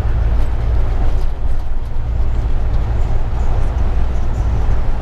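Steady low rumble with a noisy hiss above it, as of a vehicle on the move.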